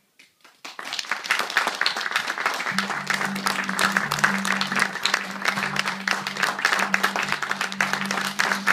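Audience applauding: dense clapping breaks out about a second in, right after the music stops, and carries on steadily, with low background music coming back underneath from about three seconds in.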